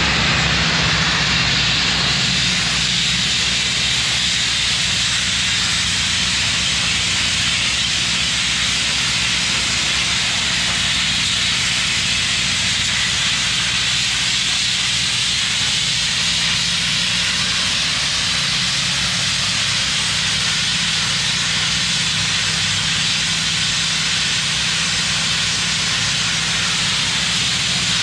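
Vapor-blasting nozzle (water, aggregate and high-pressure air) held against a concrete floor, giving a steady, unbroken hiss as it etches a narrow strip for line paint. A steady low hum runs underneath.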